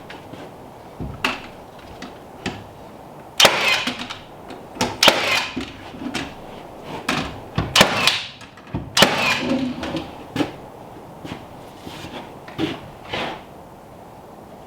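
Irregular knocks and scrapes of wood being handled or worked, with a few louder, longer scraping sounds.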